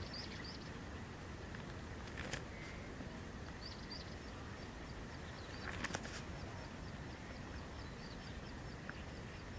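A small bird chirping, short high notes repeated a few times a second over a steady outdoor hiss, with a couple of brief rustles.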